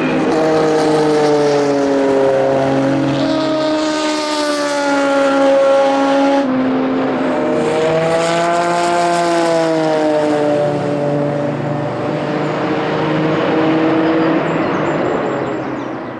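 Porsche 962C's twin-turbo flat-six racing engine running hard, its pitch rising and falling with the revs, with an abrupt change about six seconds in. The sound fades out at the end.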